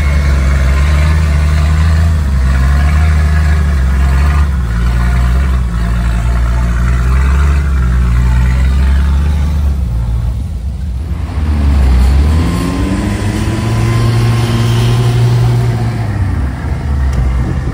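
Off-road vehicle engine running under load with a steady low hum. About ten seconds in the revs drop away, then climb again.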